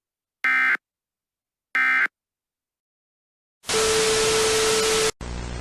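Emergency Alert System end-of-message SAME data bursts: two short identical warbling digital tone bursts about 1.3 s apart, the last of a set of three. About 3.7 s in, a loud hiss with a steady low hum-like tone comes on for about a second and a half, then cuts off to quieter static with hum.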